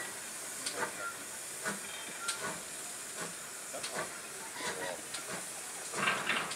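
Steam hissing from a GWR 'Small Prairie' 2-6-2 tank locomotive, with faint, irregular knocks. The hiss briefly grows louder about six seconds in.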